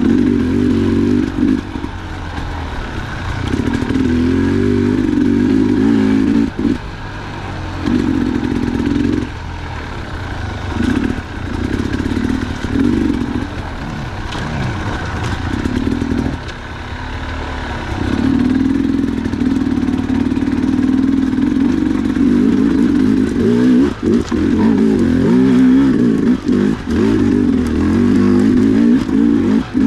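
Dirt bike engine riding a trail, revving up and easing off again and again as the throttle is worked, with clattering knocks from the bike over rough ground.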